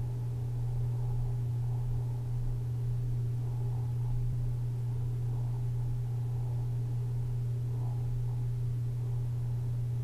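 A steady low hum with a faint hiss above it, unchanging, with no clicks or knocks.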